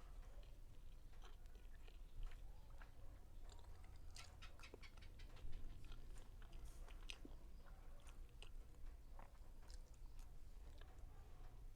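Close-miked chewing of Spanish-style sardines: many soft, wet mouth clicks and smacks, busiest from about four to seven seconds in.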